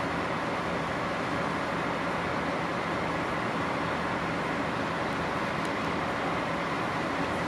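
DD51 diesel-hydraulic locomotive idling at a standstill: a steady, even engine drone with a constant hiss over it.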